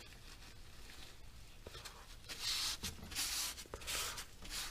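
A rag wiping up motor oil: a few short rubbing strokes in the second half, quieter at first.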